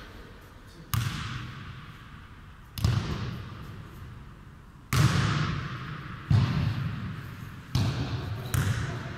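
Football being kicked and bouncing on the sports-hall floor in a futnet rally: six sharp hits, about one and a half to two seconds apart, each ringing on in the large hall's echo.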